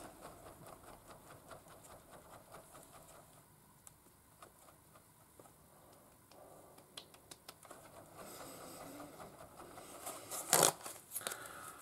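Paper-and-bamboo folding fan waved quickly in front of the face, a faint rapid fluttering patter that dies down through the middle. Near the end there is a single sharp clack.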